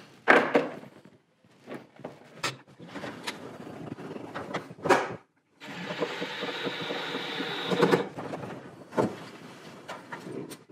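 Clicks, knocks and scraping as an 8 mm screw is worked into a stiff plastic bumper at the front wheel well. In the middle comes about two and a half seconds of steady rasping, whirring noise, then more knocks.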